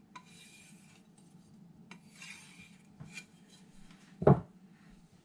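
Carbon steel knife blade stroked along a leather strop, a few short swishing passes that take off the last of the burr after the whetstone. A single louder knock comes a little past four seconds.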